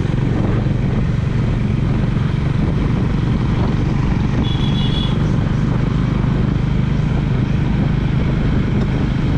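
Honda motorcycle engine running steadily at road speed, heard from the rider's seat under a constant rush of wind and road noise. A short high-pitched tone sounds briefly about halfway through.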